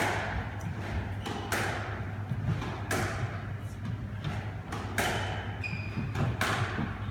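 Squash rally: the ball cracks off the rackets and walls about every one and a half seconds, each hit echoing round the court. A few short shoe squeaks on the wooden floor come near the end.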